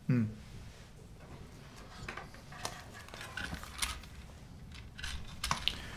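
A man's short falling vocal sound, then scattered light clicks and rustles of over-ear headphones being handled and put on.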